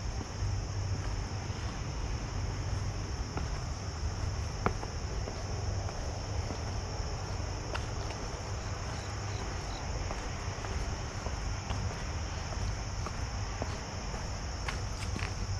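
Steady high-pitched insect chorus, like crickets, over a constant low rumble, with a few faint clicks of footsteps on stone steps.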